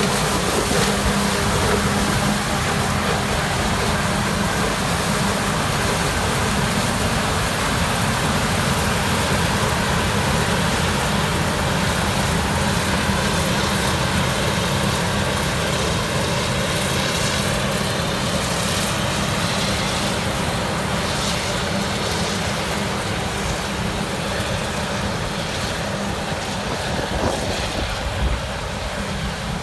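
Heavy farm machinery engines running steadily during corn silage chopping, with a faint rising whine around the middle.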